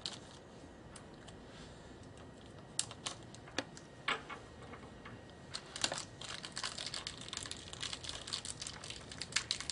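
Small plastic bag of BNC crimp-connector parts being handled and opened: a few sharp clicks, then a dense run of rapid light clicks and crinkles from a little past the middle.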